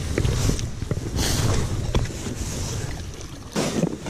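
Slush scoop scraping and swishing ice chips and slush out of a freshly augered ice-fishing hole, with wind rumbling on the microphone. A brief louder rustle and clatter near the end as a snow-covered plastic case is handled.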